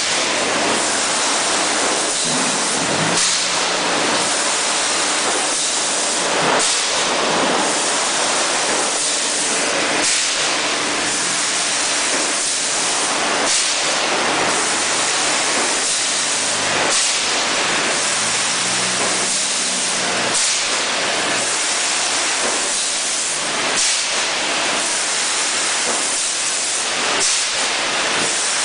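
Machinery of a 6-litre PET bottle filling and capping line running: a steady loud hiss with frequent short, sharper hisses and clacks over it.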